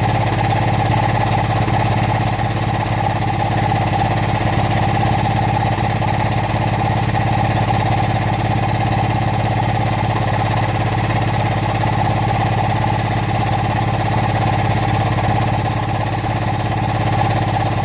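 Excavator engine running steadily at a constant speed, a continuous even hum with no revving or change in pitch.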